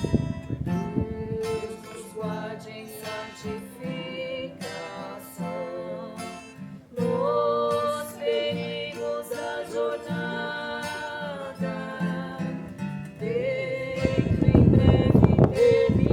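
Instrumental passage of a Congregação Cristã no Brasil hymn: an acoustic guitar strums under a held, wavering melody line. About two seconds before the end, wind buffets the microphone with a loud low rumble.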